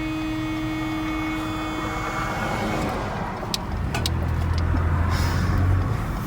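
Toyota car horn, rewired to sound whenever the brake lights come on, giving one steady note that cuts off about three seconds in, followed by the low rumble of the car moving off, with a couple of clicks.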